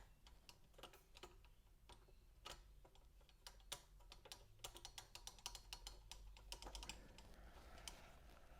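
Faint, irregular small clicks and taps of turntable parts being handled and fitted, busiest around the middle.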